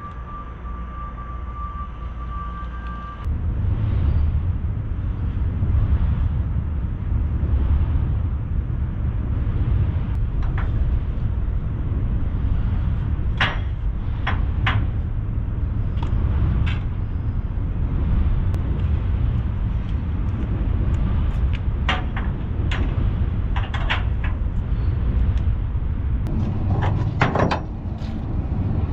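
A heavy engine running steadily with a low rumble, which gets louder about three seconds in. Over it come scattered sharp knocks and clanks, several close together near the middle and again near the end.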